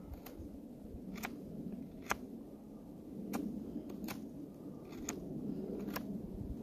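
Knife blade carving a birch stick: a short, sharp scraping stroke about once a second.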